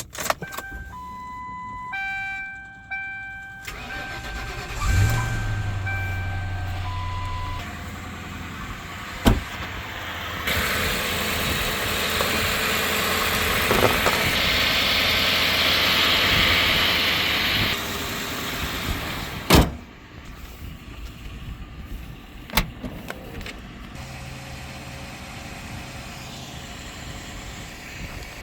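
2006 Lincoln Town Car being jump-started after its battery died in the cold: warning chimes sound for the first few seconds, then the 4.6-litre V8 cranks and starts about five seconds in and keeps running. A loud rushing noise runs for several seconds in the middle, a sharp knock comes about twenty seconds in, and the engine then runs more quietly.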